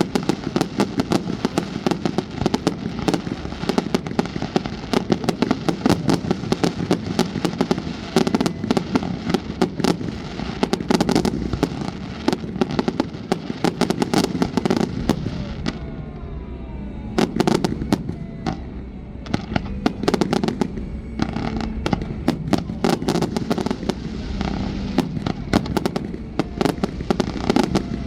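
Fireworks display: a dense, continuous barrage of shell bursts and crackling. It thins out for a few seconds about halfway through, then builds up again.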